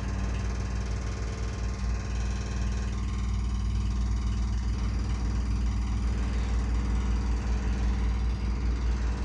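Construction machinery running: a steady, low engine-like rumble and drone with an uneven throb.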